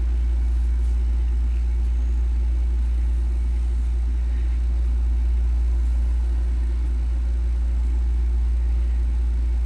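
A steady low rumble, unchanging in level, with no separate knocks or other events.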